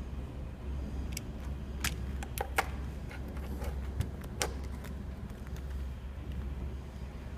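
Sharp plastic clicks and knocks as a Bluetooth FM transmitter car charger is handled and pushed into a cigarette-lighter socket, about eight clicks in the first half, over a steady low hum.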